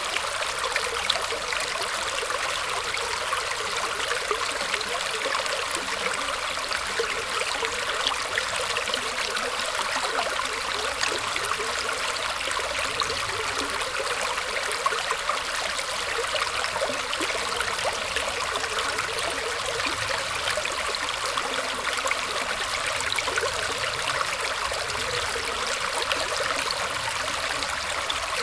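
Small stream of water trickling and splashing steadily over tree roots, a dense, even babble.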